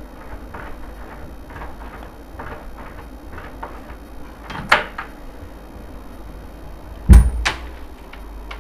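Wooden wardrobe door and its cupboard lock being worked by hand: faint small clicks, a sharp knock near the middle, then a heavy thump and a click about seven seconds in as the door is pulled open.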